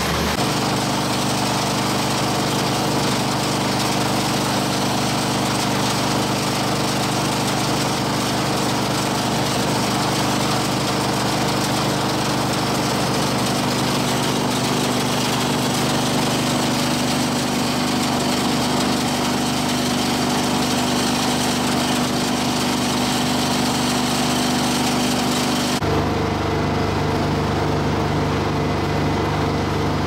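Twin-shaft appliance shredder running: a steady mechanical hum of its drive over a hiss of grinding scrap. Near the end the sound switches abruptly to a lower, duller hum with less hiss.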